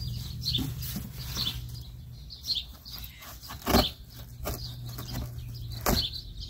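Packing tape on a cardboard box being cut open with a hand cutting tool, with two sharp clicks about four and six seconds in, while small birds chirp in the background.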